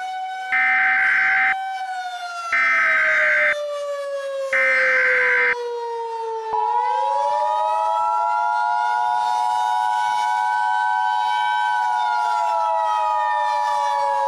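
Emergency Alert System tones: three one-second bursts of SAME header data about a second apart, then, about six and a half seconds in, the steady two-tone EAS attention signal. Beneath them a siren slowly rises and falls.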